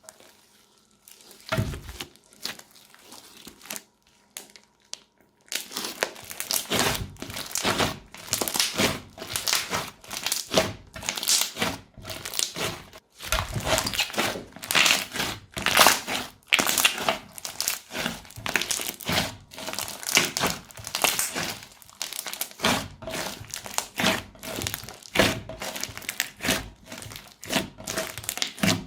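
Crunchy slime being squeezed and pressed by hand, giving dense, rapid crackling and popping. It is fairly quiet for the first five seconds or so, apart from a single soft knock.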